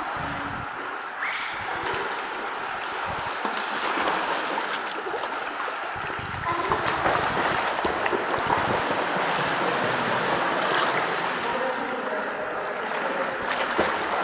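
Pool water splashing and sloshing from a swimmer doing breaststroke, a steady rushing wash with small splashes, growing somewhat louder about halfway through.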